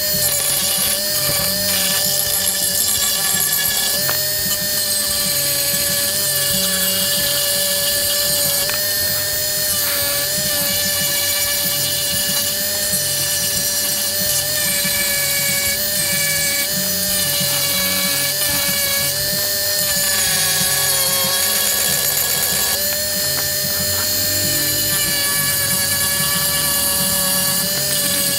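Handheld rotary tool with a sanding drum running steadily at high speed, grinding down a hardened patch of instant noodles and superglue. Its whine wavers and sags a little in pitch now and then as it is pressed into the work.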